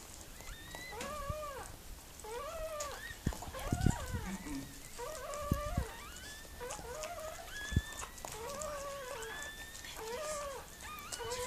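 Newborn puppy crying in a string of short, high, rising-and-falling squeals, about one a second, with a few soft thumps from the mother dog moving and licking it.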